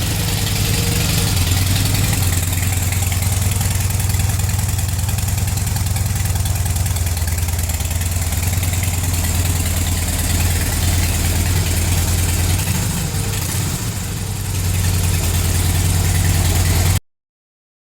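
Harley-Davidson V-twin idling steadily through its stock mufflers, a deep even note, slightly louder for the last few seconds before the sound cuts off suddenly near the end.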